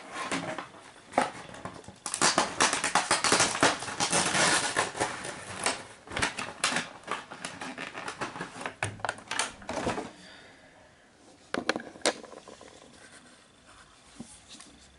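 Plastic packaging crinkling and rustling in the hands, with many quick clicks and crackles, as a figure is unpacked. It dies down past the middle, and two sharp plastic clicks follow near the end.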